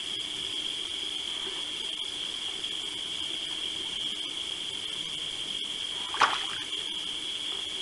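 A steady, high-pitched chorus of night insects such as crickets. One short, sharp sound cuts through it about six seconds in.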